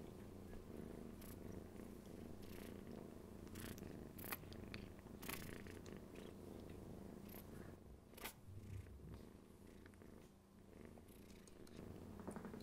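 Cat purring faintly and steadily, with a few soft clicks and rustles.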